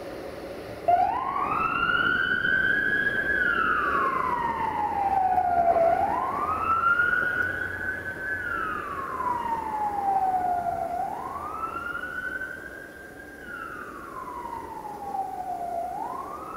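A siren wailing in slow cycles, starting about a second in: each cycle rises, holds high, then falls, about five seconds per cycle, three times over.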